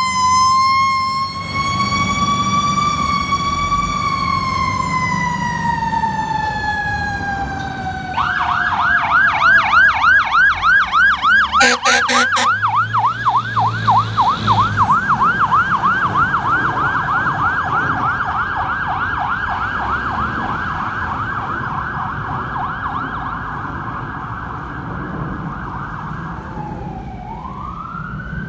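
Fire truck sirens. A wail rises and then slowly winds down, and about eight seconds in a fast yelp takes over and holds steady, fading as the trucks pull away. There is a short blast around the middle, and a new rising wail starts near the end.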